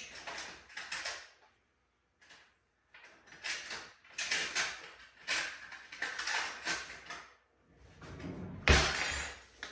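Rustling and scraping of a salt container and a measuring spoon as a teaspoon of sea salt is measured out: a run of short scraping strokes with brief pauses, then one sharp knock near the end, the loudest sound.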